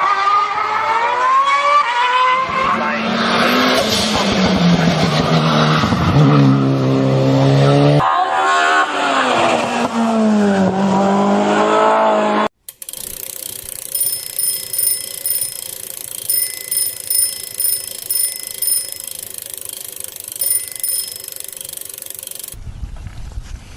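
Race car engine revving, its pitch sweeping up and down as the cars pass, cut off abruptly about halfway through. Then a bicycle bell rings in repeated quick bursts.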